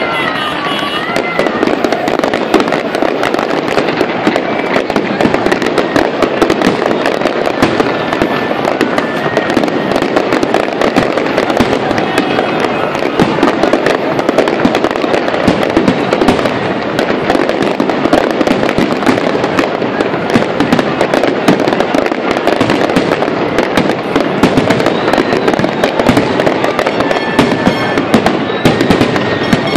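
A large fireworks display in a dense, continuous barrage, with many shells bursting and crackling in rapid succession without a break.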